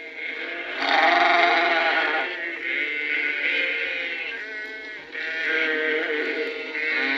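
A flock of sheep and lambs bleating, one call after another with some overlapping.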